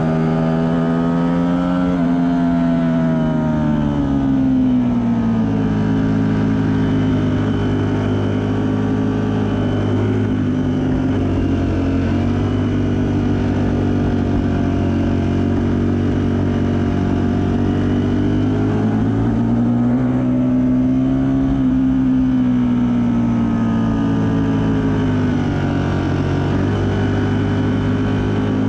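Onboard sound of a Ducati Panigale V4 S's V4 engine under way on a race track, its pitch climbing and easing off gently and repeatedly as the throttle is worked through sweeping corners. Wind buffeting the microphone runs underneath.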